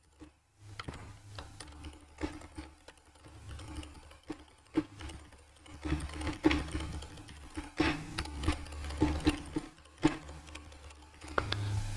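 Typing on a computer keyboard: a quick, uneven run of key clicks that starts about half a second in and runs on with short pauses.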